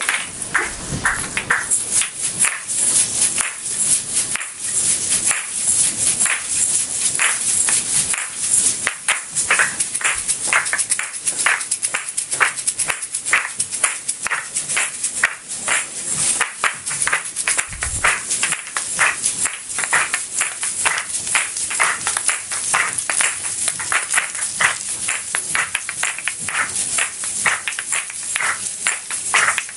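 Several pairs of asalato (kashaka), seed-filled shells joined by a cord, played together in a fast rhythm: sharp clicks as the shells strike each other, over the rattle of the seeds inside.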